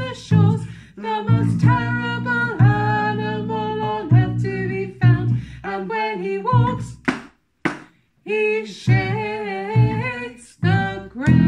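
A man and a woman singing a children's song together over a plucked double bass. The singing breaks off briefly with two short sharp knocks about seven seconds in, then goes into a long held note near the end.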